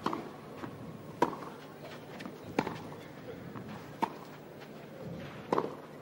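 Tennis rally on a clay court: about five crisp strokes of racket on ball roughly every second and a half, each with a short ping of the strings, with fainter ball bounces between them over a low crowd murmur.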